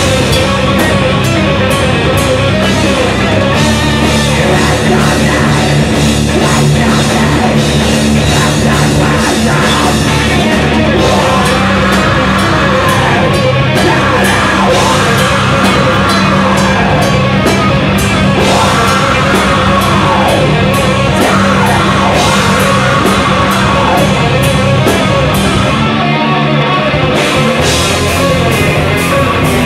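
Metal band playing live: distorted electric guitars, bass and a drum kit, loud and dense, with a short break in the drums and bass near the end.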